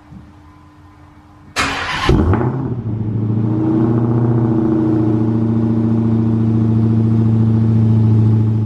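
Dodge Hellcat's supercharged 6.2-litre Hemi V8 cranking briefly and firing about a second and a half in, flaring up in revs, then settling into a steady idle. It is the car's first start after about three months of sitting, and it catches on the second attempt.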